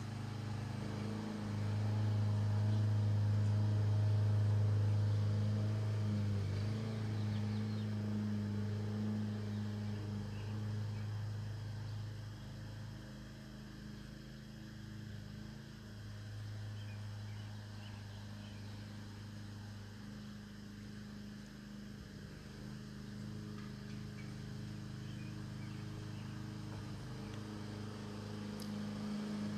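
A steady low motor hum with a deep droning tone. It swells about two seconds in and eases off after about six seconds.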